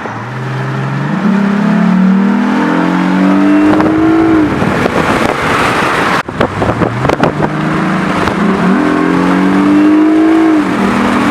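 Lexus IS350's 3.5-litre V6 through a Megan Racing axle-back exhaust, accelerating twice with a deep tone. Each time the pitch climbs steadily for a few seconds, then drops suddenly.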